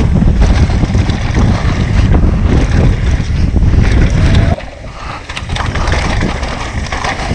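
Wind rushing over a helmet-camera microphone with tyres and bike rattling over dirt and rock as a mountain bike descends at speed. The loud rush drops suddenly about four and a half seconds in, leaving a quieter clatter of the bike over rougher ground.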